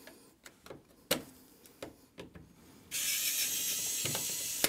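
A screw being backed out of an electrical outlet cover plate with a screwdriver. First come scattered light clicks and taps, then about three seconds in a steady, fast ratcheting run of under two seconds that stops abruptly with a click.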